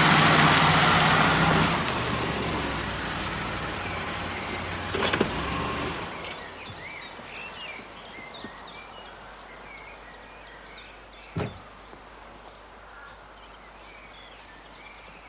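A motor engine runs loudly at first and fades away over the first several seconds, as if driving off. Then birds chirp, with a sharp knock about eleven seconds in.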